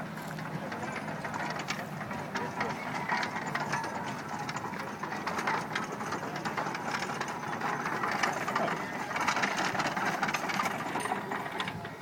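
Circa-1918 steam traction engine driving a belt-powered Ann Arbor hay baler: steady mechanical running with many small knocks throughout, with background voices.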